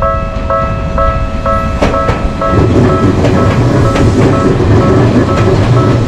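Japanese level-crossing warning bell ringing in a steady ding-ding about twice a second. About two and a half seconds in, a train starts passing over the crossing, with a loud rumble and the clack of wheels on the rails under the bell.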